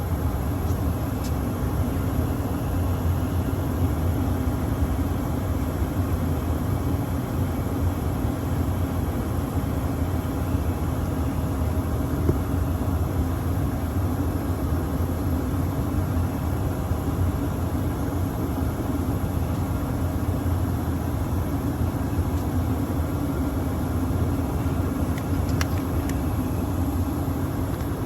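Gas-electric package HVAC unit running in heating mode: a steady, unchanging mechanical drone from its burners and motors.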